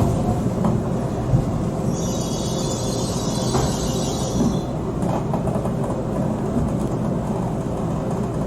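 Train running with a steady low rumble. About two seconds in, a high hiss or squeal comes in, lasts about two and a half seconds, then stops.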